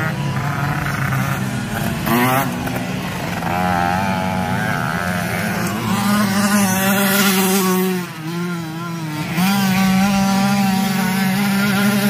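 Several 50cc racing motorcycle engines running at high revs, their pitch wavering up and down as they accelerate and ease off. The sound drops briefly about eight seconds in, then the engines pick up again.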